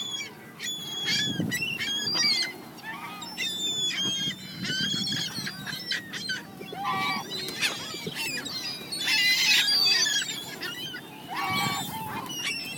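A group of birds calling over and over with many short, overlapping, high calls while squabbling over bread thrown to them. The calls are loudest about nine to ten seconds in.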